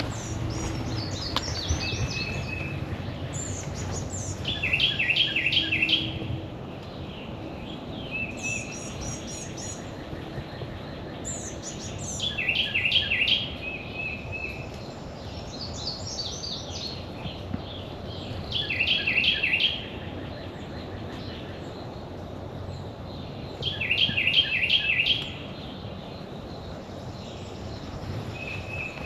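A songbird singing the same quick, trilled phrase about four times, roughly every six seconds, with fainter higher calls from other birds in between.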